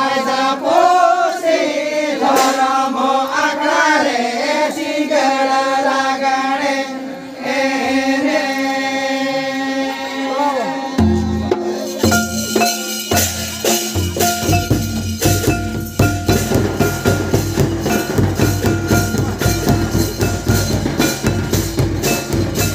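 Santali lagre song: singing over a sustained harmonium, then about halfway through the drums come in, first with a few deep strokes, then a steady fast rhythm on a large dhamsa kettle drum and a rope-laced barrel drum.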